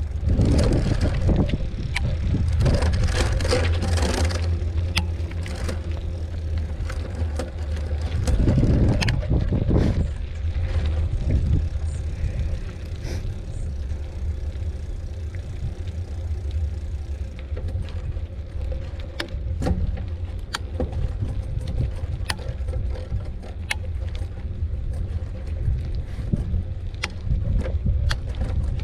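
Wind rumbling on the microphone during a mountain bike ride, with frequent clicks and rattles from the bike over a rough trail. It is louder and noisier about a second in and again around eight to ten seconds in.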